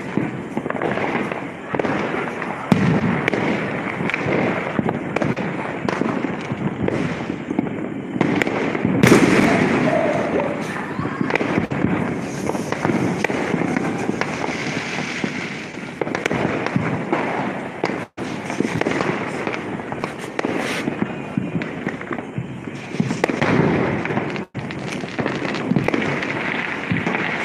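Fireworks and firecrackers going off without a break, a dense crackle of bangs and pops with a louder burst about nine seconds in.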